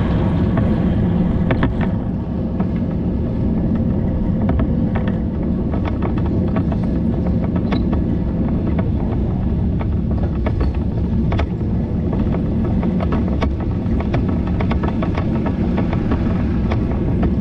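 Steady low rumble of wind and tyre noise on the microphone of a bicycle being ridden, with scattered light clicks and rattles.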